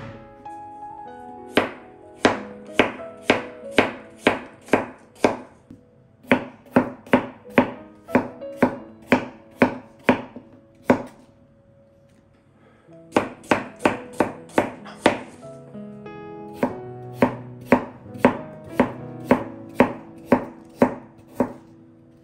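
Knife chopping food on a cutting board in quick, even strokes, about two to three a second, in several runs with short pauses between them.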